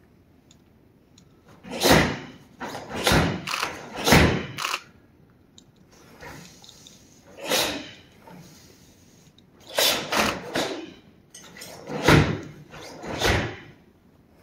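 Sharp snaps of a karate gi and thumps of bare feet on a stage floor, coming in quick clusters of two to four with each burst of fast strikes and blocks in the kata Annan. There are short pauses between the clusters.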